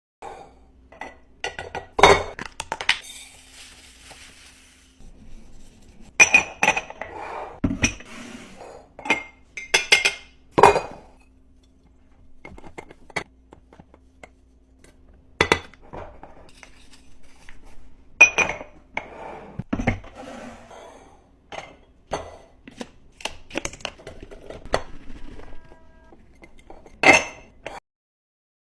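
Glass containers clinking and clacking as they are handled and set down one after another during a restock, with a faint steady hum underneath.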